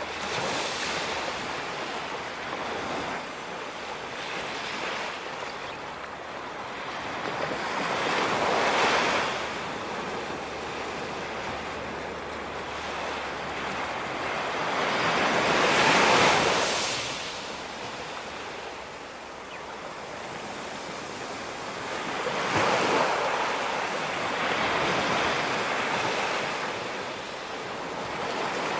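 Ocean waves breaking on a beach: a steady wash of surf that swells every several seconds as a wave breaks, the loudest about sixteen seconds in. Some wind rumbles on the microphone.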